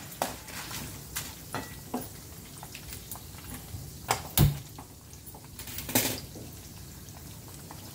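Wooden spatula stirring chana dal and urad dal frying in oil in a kadai, with irregular scrapes and taps against the pan and one louder knock about four and a half seconds in.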